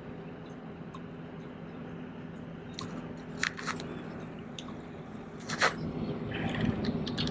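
Light spinning rod and reel worked through a cast: a few sharp clicks from the reel about three seconds in, then a sudden swish as the rod is swung, over a steady low engine hum from a watercraft.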